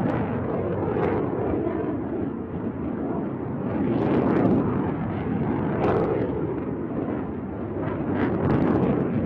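Rocket motor of a submarine-launched cruise missile: a deep rushing rumble that swells and eases several times.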